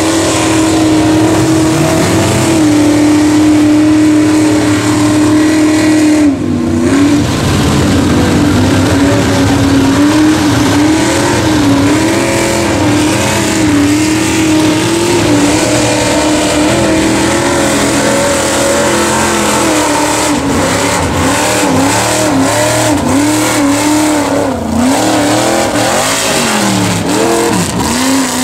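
Mega truck engine with open exhaust headers running at high revs under load in deep mud, the pitch wavering up and down as the throttle is worked. It drops sharply about six seconds in and dips again several times near the end before climbing back.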